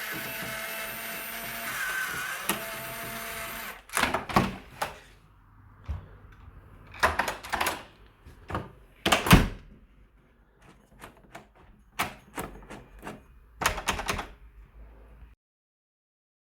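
Plastic clicks and knocks from the battery compartment of a Nuki smart lock being opened and handled, after a steady whirring hiss for about the first four seconds.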